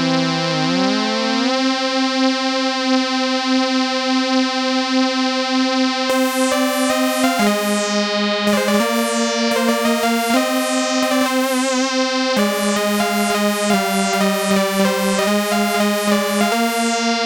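Korg ARP 2600 FS analog synthesizer playing a single-voice lead line. A held note glides up in pitch in the first second or so and then holds. From about six seconds in, a run of changing notes follows, each with a bright sweep falling through the upper tones as the filter moves.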